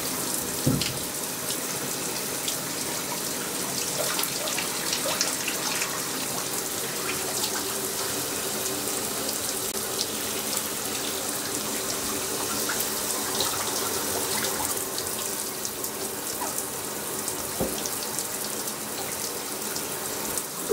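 Shower running steadily, water spraying and splashing, with a couple of short knocks, one about a second in.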